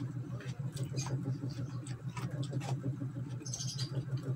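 Close-up chewing and mouth-smacking while eating chicken adobo, many small irregular wet clicks, over a steady low hum.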